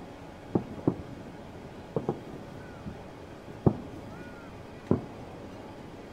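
Fireworks going off: six sharp bangs at uneven intervals, some in quick pairs.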